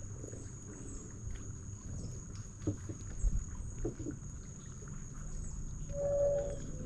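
Calm water lapping against the hull of a small fishing boat, with a low rumble of wind and a few soft knocks around the middle. A steady faint high whine runs underneath, and a brief held tone sounds about six seconds in.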